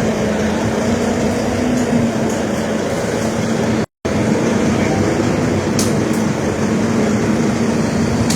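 Heavy vehicle engine running steadily with a constant low drone, the sound cutting out completely for a moment about four seconds in.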